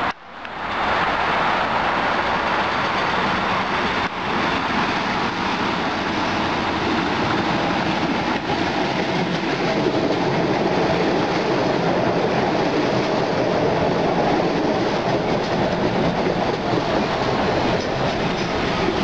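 MBTA Red Line subway train running close past the platform: steady wheel-on-rail noise with some clickety-clack, after a brief dropout at the very start.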